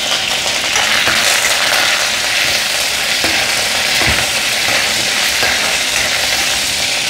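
Tempering sizzling in hot oil in a stainless-steel kadai: mustard seeds, urad dal, dried red chillies and freshly added curry leaves frying with a steady crackling hiss. A metal ladle stirs through it with a few faint scrapes against the pan.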